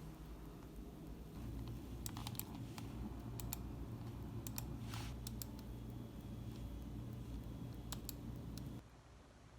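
Faint, scattered light clicks and taps over a low steady hum, which cuts off abruptly near the end.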